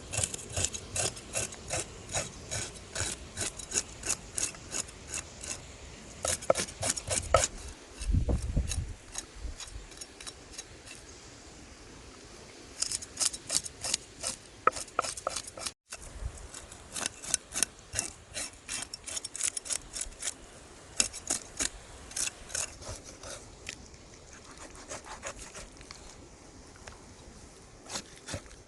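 Coconut being grated by hand: quick rasping scrapes, about three or four a second, in runs broken by short pauses. A dull low thump comes about eight seconds in.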